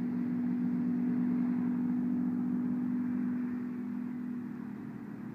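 A vehicle engine running with a steady, unchanging hum. It slowly fades in the last couple of seconds.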